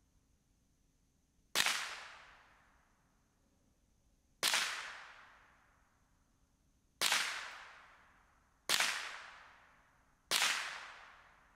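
Five single shots from a Ruger 10/22 semi-automatic .22 LR rifle, spaced about two to three seconds apart. Each is a sharp crack that fades away over about a second.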